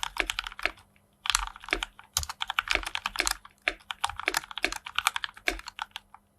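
Typing on a DZ60 mechanical keyboard in an acrylic case, fitted with Gateron Black linear switches lubed with Krytox 205g0. It is a fast run of keystrokes, with a brief pause about a second in and another near the end.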